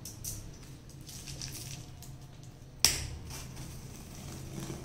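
A small blade slitting the packing tape on a cardboard box, with irregular scratchy crackling as it cuts. One sharp, loud crack a little past halfway.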